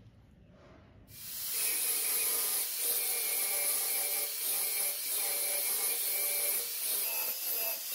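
Angle grinder with an abrasive disc grinding into the hardened steel of an old file, starting suddenly about a second in. It is a steady, loud grinding hiss with a whine running under it.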